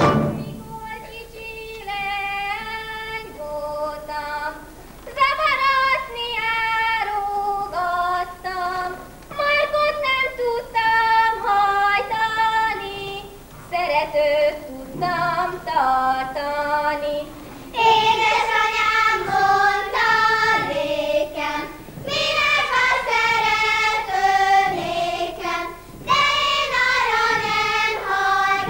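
Unaccompanied Hungarian folk song sung by a woman alone at first. About eighteen seconds in, a group of girls' voices joins her and the singing grows fuller and louder.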